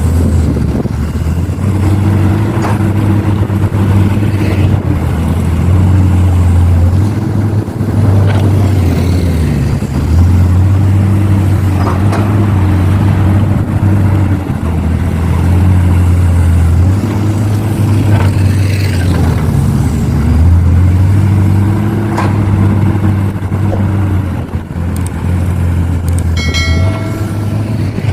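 Excavator's diesel engine working under hydraulic load while loading soil into a truck. The engine note swells and eases in repeated cycles every few seconds, with occasional knocks. A brief high-pitched tone sounds near the end.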